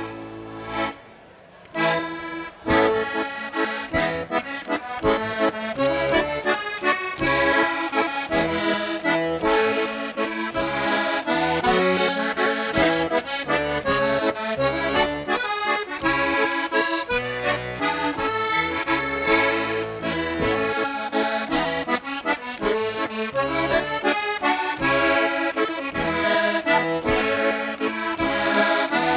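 Diatonic button accordion playing an old-time dance tune, with bass notes under the melody, starting about two seconds in.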